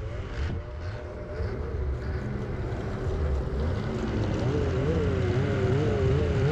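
Snowmobile engines running as several sleds ride past at low speed: a low rumble with a wavering engine note that rises and falls and grows louder in the second half.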